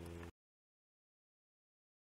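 Silence: a steady low hum with faint background noise cuts off abruptly about a third of a second in, leaving dead digital silence.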